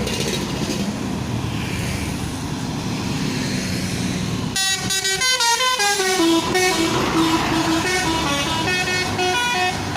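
A bus engine runs, then about four and a half seconds in the bus's telolet horn starts up and plays a melody of held notes that step up and down in pitch, over the running engine.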